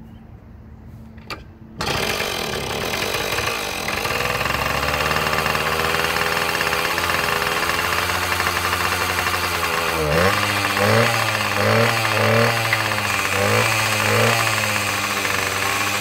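1977 Yamaha GT80's two-stroke single-cylinder engine catching on a kick about two seconds in, its first start in some 20 years, then running steadily. From about ten seconds in the revs rise and fall several times in short blips.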